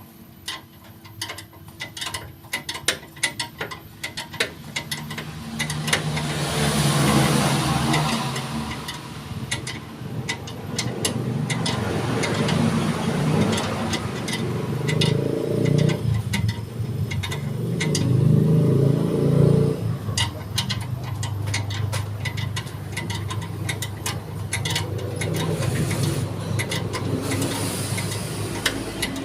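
Rapid ticking and clicking for the first few seconds, then a car engine runs and revs up and down in several swells.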